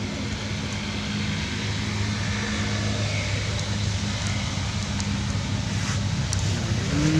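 Steady low hum of an engine running, over even background noise, with a short rising call near the end.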